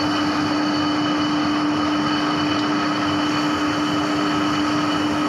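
Herbert No. 7 Preoptive turret lathe running under power: a steady machine hum with one strong low tone and fainter higher steady tones above it, even throughout.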